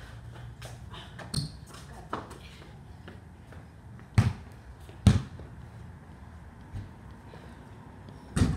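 Basketball bouncing on a concrete driveway: a few separate, unevenly spaced bounces, the loudest about four and five seconds in.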